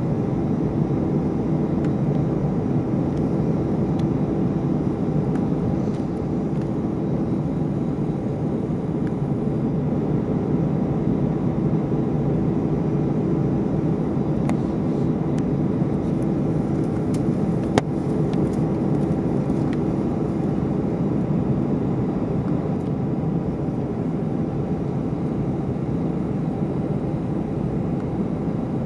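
Airbus A319 taxiing, heard from inside the passenger cabin: a steady hum of the engines at low power with a faint steady tone in it. A single sharp click about eighteen seconds in.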